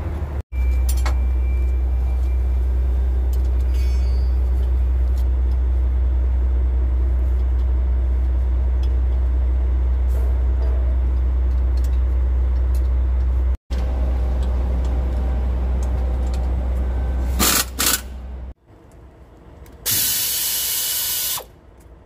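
A steady, loud low machine hum that breaks off suddenly twice. A few sharp metal clanks follow, and near the end comes a blast of hiss about a second and a half long, typical of compressed air from a shop air line.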